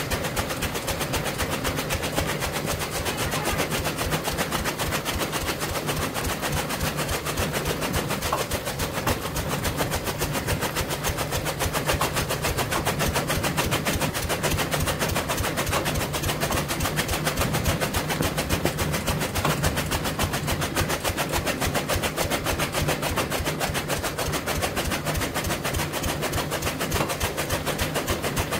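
Chaff cutter (toka) running, its flywheel blades chopping green fodder stalks in a rapid, even rattle over a steady low hum.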